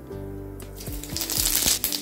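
Panch phoron seeds tipped into hot mustard oil, starting to sizzle and crackle about half a second in and growing louder, over background music.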